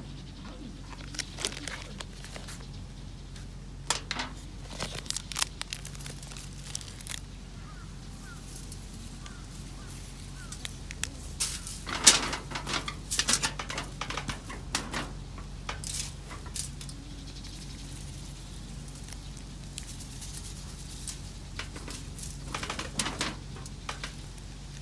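Intermittent crinkling and rustling of a plastic seasoning packet and aluminium foil, with scattered light clicks and taps, as seasoning is shaken onto a block of raw beef and rubbed in by hand. The sharpest bursts come about halfway through and again near the end.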